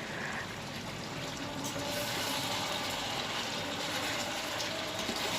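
Chicken masala frying in oil on a tawa: a steady sizzling hiss that grows a little louder about two seconds in.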